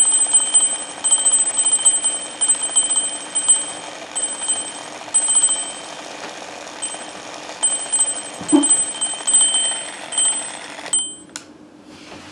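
Alarm clock ringing in short repeated bursts of a high tone, cutting off suddenly about eleven seconds in as it is switched off.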